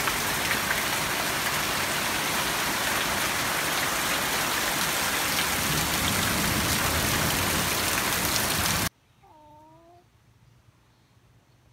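Heavy rain pouring down in a steady, loud hiss that cuts off suddenly about nine seconds in. A much quieter outdoor background follows, with one short call that slides in pitch.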